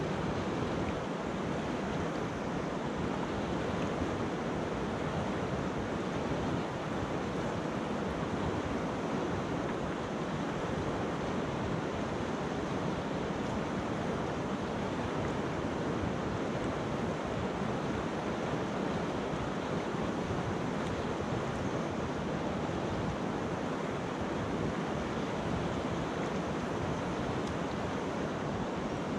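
River water rushing steadily over a pebble and stone bed, an even, unbroken rush.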